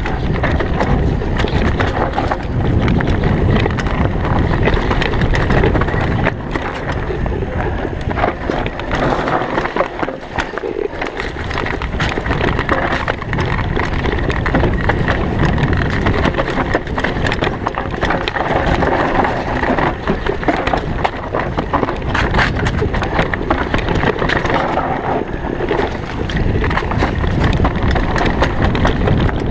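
Downhill mountain bike descending a dirt trail strewn with dry leaves: tyres rolling over dirt and leaves, the bike rattling and knocking over bumps, and wind buffeting the microphone. The noise eases for a few seconds about ten seconds in.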